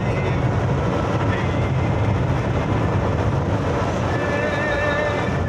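Steady heavy rain, a dense even rush with most weight in the low range. Faint wavering tones, like a distant voice, come in about four seconds in.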